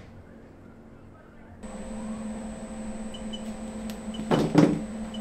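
Steady electric hum of a Green Mountain Grills Daniel Boone Prime pellet smoker running at temperature, its fan and auger working; it starts abruptly about a second and a half in. A short, loud clatter breaks in near the end.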